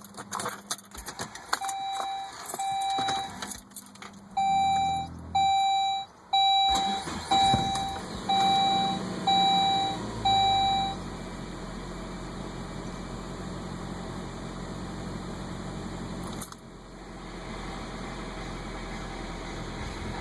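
Saab 9-5 starting: clicks of the key and switches, a car warning chime beeping repeatedly, then the engine running and settling into a steady idle. There is a single click late on.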